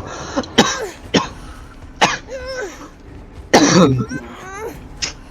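A person coughing, a run of several harsh coughs with throat-clearing sounds between them, the loudest cough about three and a half seconds in.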